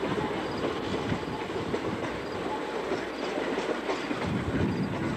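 Miniature steam train, a small steam locomotive pulling passenger cars, running past with a steady rhythmic clickety-clack of its wheels on the rails.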